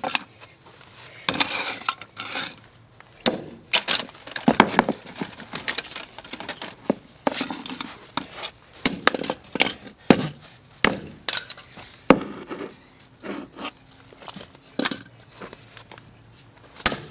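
Toy cars being knocked and clattered about: a string of irregular sharp knocks, clacks and clinks with short pauses between them.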